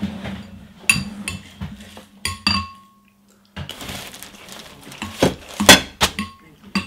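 Metal spoon clinking against a ceramic bowl while eating: a series of sharp clinks, each with a short ring. There is a brief gap of silence midway.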